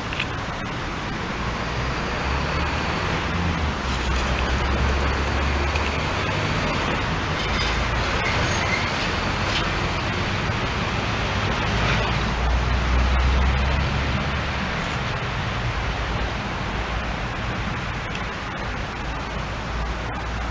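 Steady hiss of road traffic with a low rumble that swells twice as vehicles pass.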